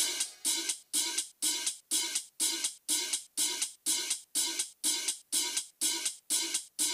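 Background electronic music in a stripped-down passage: a steady percussion beat of about two hits a second, with no bass or kick drum.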